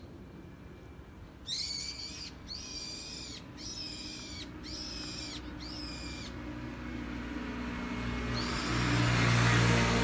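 A bird calls five times in quick succession with loud, shrill, evenly spaced calls. About halfway through, a passing vehicle swells in, a rising rush with a low hum, and it is loudest near the end.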